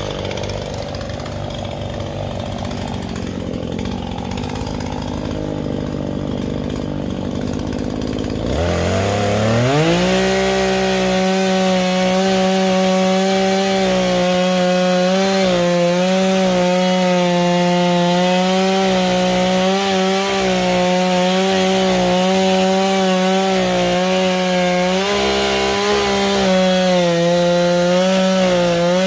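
New Husqvarna two-stroke chainsaw engine being warmed up: it idles unevenly, then about eight seconds in it revs up and holds a steady high-pitched whine with slight wavers for the rest of the time.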